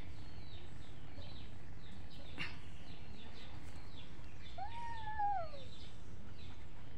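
A kitten meows once about five seconds in, a single call that rises and then falls, over faint bird chirping and steady background noise.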